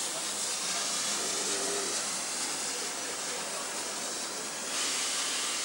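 Steam locomotive passing close alongside, with a steady hiss of escaping steam that swells briefly near the end.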